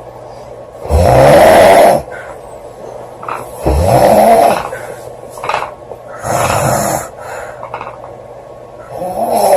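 A woman snoring loudly: four snores about every two and a half seconds, each lasting about a second.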